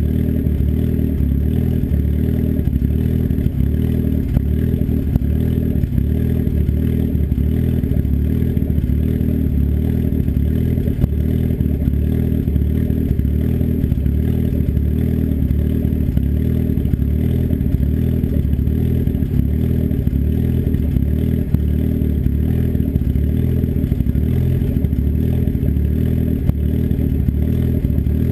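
Turbocharged engine with an S257 turbo and custom cams idling steadily through an open 3-inch turndown dump off the downpipe, with no muffler. The idle is loud and even, with a regular pulse and no revving.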